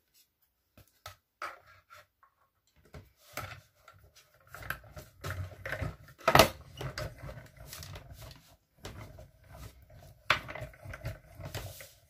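A few light clicks of plastic cutting plates being handled, then, from about four and a half seconds in, a hand-cranked mini die-cutting machine rolling a die and cardstock between its plates: a low rumble with clicks and knocks, the loudest knock about six seconds in.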